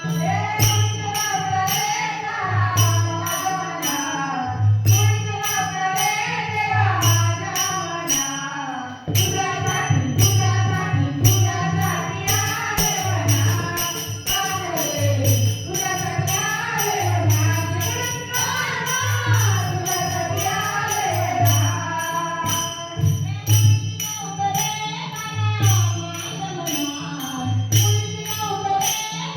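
Marathi gaulan devotional song: a woman singing a wavering melody over low drum beats, about one a second, with jingling percussion above.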